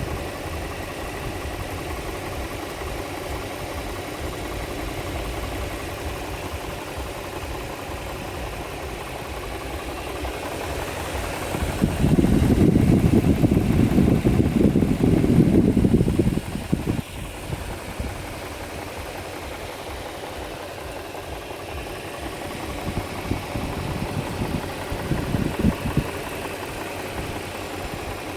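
2004 Infiniti FX35's 3.5-litre V6 engine running at idle, carrying an extraneous noise that the owner cannot place. About twelve seconds in it grows much louder for some four seconds, then drops back, with a few shorter surges later on.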